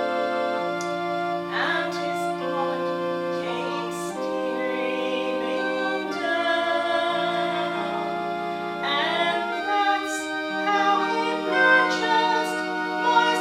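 Slow sacred music: singing over long held chords that change every second or two.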